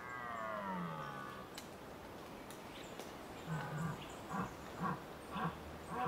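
Red deer stag roaring in the rut: one long call falling in pitch, then about two seconds later a string of short grunts, about two a second.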